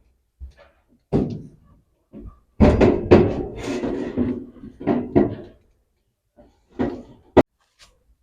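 Irregular knocks, clunks and clatter of a spin dryer's parts being handled and fitted during reassembly, with a busy stretch of handling noise in the middle and one sharp loud click near the end.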